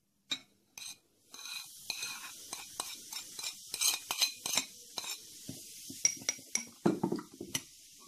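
Ceramic saucer scraping and clinking against the rim of a small ceramic bowl as baking soda is pushed off it into the bowl: a run of scraping with many small clicks and clinks, and a heavier knock near the end.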